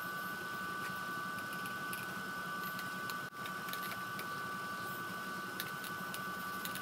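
Steady room hum with a constant high two-note whine from running equipment, with faint light scratches of a pencil marking the wooden model's ribs. The sound briefly drops out about three seconds in.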